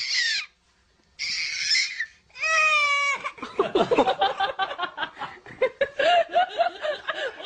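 A baby laughing: a high, held squeal about two and a half seconds in, then a long run of quick, rhythmic laughs. Two short breathy bursts come before it.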